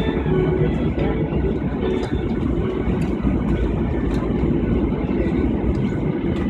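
Steady rumble and hum of an airliner cabin with the aircraft's engines and air systems running, with a few faint clicks.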